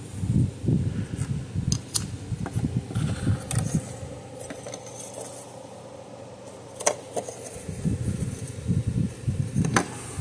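Hands working with the parts of an electric fence charger: irregular sharp clicks and light clinks of small hard parts, over uneven low bumps and rubbing.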